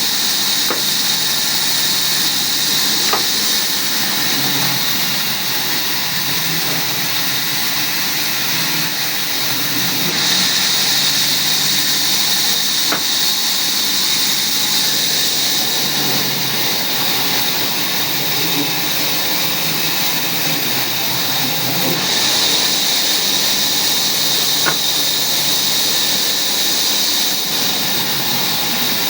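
Woodworking machinery running steadily: a loud, even whirring noise with a faint hum, broken by a few sharp clicks.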